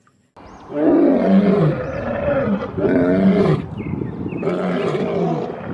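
A lion roaring and growling: a run of rough, gravelly roars that swell and fade several times, starting about half a second in.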